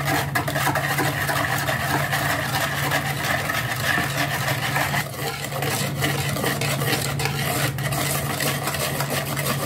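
Wire whisk beating a thin orange-juice-and-oil cake batter by hand in a plastic bowl: fast, continuous strokes with the wires tapping and scraping the bowl and the liquid sloshing, with a brief let-up about five seconds in. A steady low hum runs underneath.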